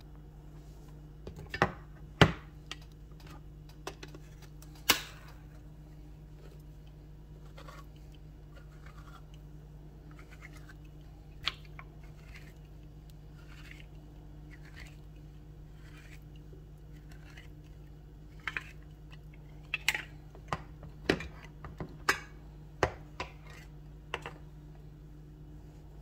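A handheld manual can opener working a tuna can open: a few sharp clicks and clacks in the first seconds, soft repeated ticking through the middle as the cutting wheel runs round the rim, then a quick run of loud metallic clicks and clacks near the end. A steady low hum runs underneath.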